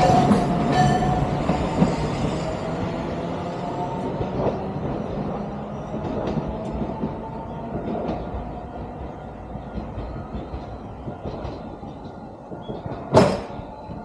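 Sangi Railway Hokusei Line 762 mm narrow-gauge train running away along the track, its sound fading steadily as it recedes. A single sharp knock about a second before the end.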